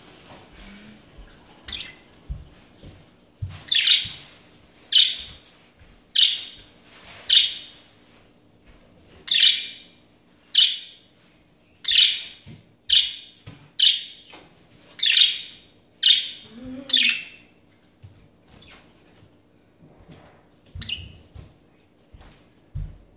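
Caged budgerigars chirping: a run of short, sharp chirps about one a second, thinning to a few scattered chirps near the end.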